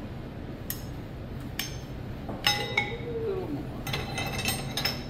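Metal hand tools clinking and ringing against metal parts on a workbench: a few separate clinks, the loudest about halfway through, then a quick cluster of clinks near the end.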